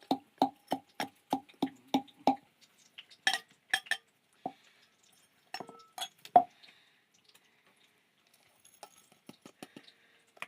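Rhythmic knocking of kitchen work, about three strokes a second, stops a little over two seconds in. Scattered clinks of utensils and dishes follow, the loudest about six seconds in, then a few faint ticks.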